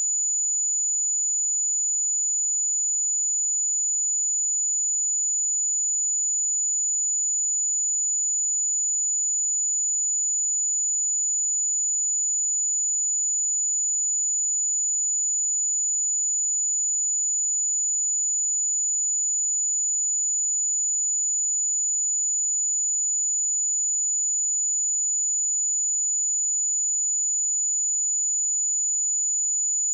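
A pure 6938 Hz sine-wave test tone held steady at one pitch and level: a single high-pitched whistle-like tone.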